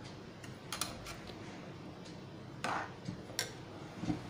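A few light, separate clicks of a steel spoon against a kadai as spice powder is stirred into gravy, over a faint steady hiss.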